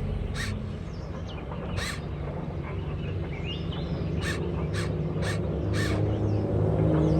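A crow cawing about six times, two spaced caws and then a run of four close together, over the steady low hum of a model crawler excavator's motor, with small birds chirping faintly.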